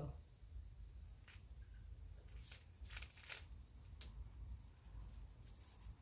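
Faint crickets chirping steadily, with a few soft clicks and taps scattered through the middle.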